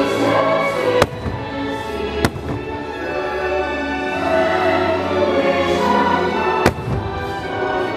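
Aerial fireworks shells bursting, three sharp bangs about one, two and six and a half seconds in, over steady show music.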